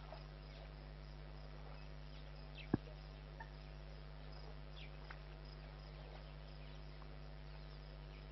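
Faint background: a steady low hum with scattered faint high chirps, and one sharp click a little under three seconds in.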